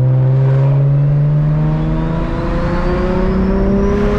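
Single-turbo BMW 335i's N54 inline-six heard from inside the cabin, pulling in gear with its pitch climbing slowly and steadily. A faint high whine rises alongside it from about halfway.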